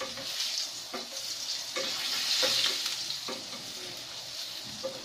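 Hot oil sizzling in a frying pan as a spatula stirs the contents, the spatula knocking and scraping against the pan about once a second. The sizzle swells in the middle.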